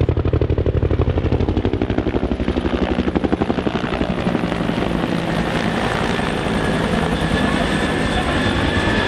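Two low-flying Huey-type helicopters with two-bladed main rotors passing overhead: rapid, rhythmic rotor blade thumping that evens out into a steadier rotor and engine wash after about four seconds, with a thin high whine in the second half.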